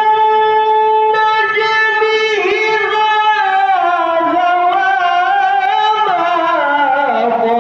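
A male Qur'an reciter holds one long melodic vowel in a high register. It starts steady, is ornamented with wavering turns in the middle, and steps down in pitch near the end.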